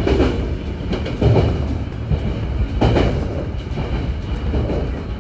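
Nankai electric commuter train running along the track: a steady rumble of the wheels, with a wheel clack over the rail joints every second or two.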